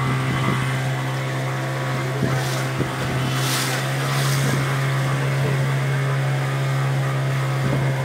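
Motorboat engine running steadily with a low, even hum, with a few brief hissing bursts about halfway through.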